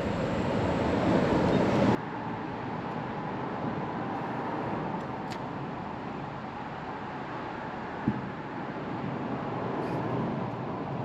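Boat motor running steadily with a faint whine under a wash of wind and water noise; the sound drops abruptly about two seconds in, and there is a single short knock near eight seconds.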